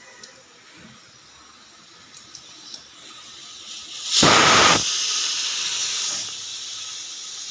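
Pressure cooker whistle venting steam: a faint hiss builds, a loud blast of escaping steam bursts out about four seconds in for about half a second, then a steady hiss eases off about two seconds later.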